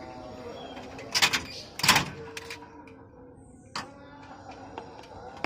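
A lovebird nest box being opened and checked for eggs: a few sharp knocks and clatters, the loudest about two seconds in, with a faint steady hum under the second half.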